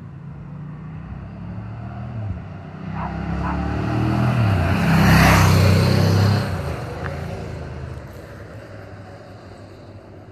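1998 Ducati ST2's 944 cc V-twin ridden past at speed. The engine note builds as it approaches, is loudest about five to six seconds in, drops in pitch as it passes, then fades into the distance.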